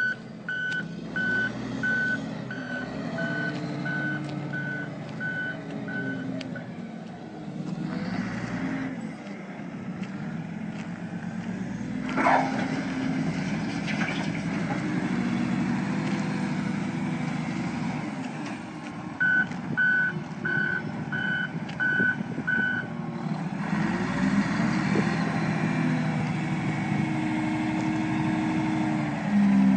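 Komatsu WA500-6 wheel loader's six-cylinder diesel engine running, its pitch rising and falling as the machine manoeuvres. The reverse alarm beeps at an even pace in two spells, at the start and again about two-thirds of the way through. A brief squeal about halfway.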